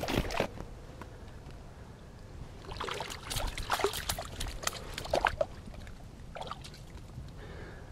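A freshly caught brook trout flopping on wet ice at the edge of an ice-fishing hole: a run of wet slaps and splashes, busiest from about three to five and a half seconds in, after a couple of sharp knocks at the start.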